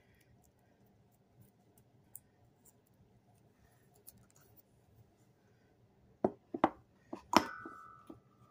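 A porcelain music box handled and set down on a wooden tabletop: faint handling ticks, then a cluster of sharp knocks and clicks about six seconds in. The loudest knock is followed by a short ringing tone.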